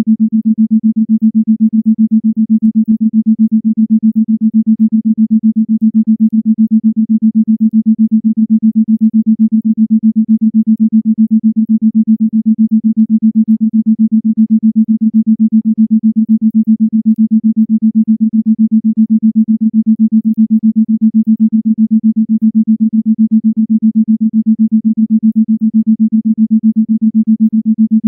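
Isochronic tone: a single low, steady electronic tone pulsed on and off in rapid, even beats.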